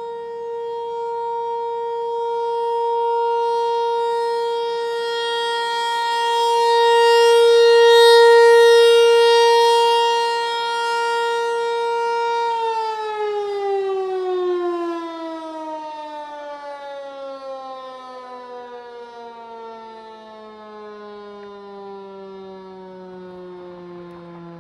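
Federal Signal 508-128 rotating mechanical siren holding a steady tone, its loudness swelling and fading as the horn turns. About halfway through it winds down, the pitch sliding steadily lower, ending the steady Alert signal.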